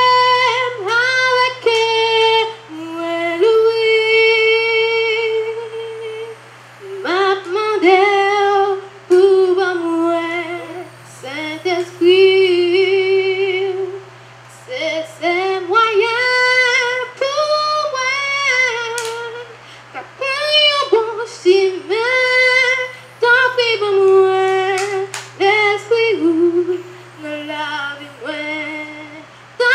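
A young girl singing solo into a handheld microphone, unaccompanied, in phrases with long held notes and short breaths between them.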